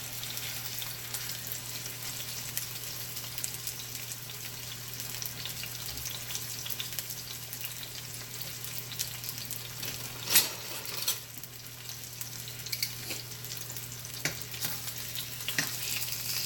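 Stuffed chicken breasts searing in about two tablespoons of hot olive oil in a stovetop pot: a steady sizzle with crackling spits. A few sharper knocks cut through, the loudest about ten seconds in.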